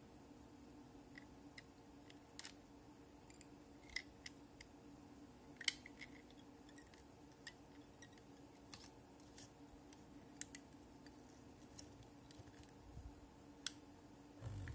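Faint, scattered small clicks and taps of fingers handling a hand-held plastic electric hook-tying machine with a fishing hook and line, over a faint steady hum. The sharpest click comes about six seconds in.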